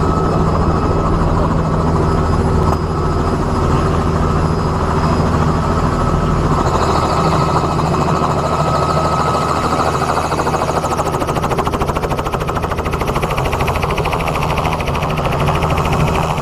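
Aircraft engine running steadily, heard from on board, with a constant rush of air noise.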